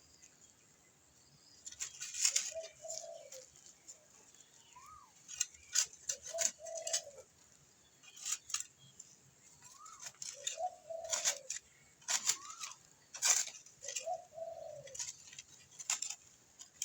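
Scattered clicks and scrapes of digging in garden soil for sweet potatoes. Behind them a dove coos, one short call about every four seconds.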